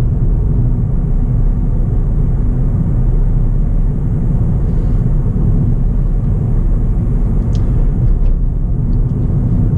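Steady low rumble of a Ford New Fiesta being driven, heard from inside the cabin: engine and road noise with no changes in pitch.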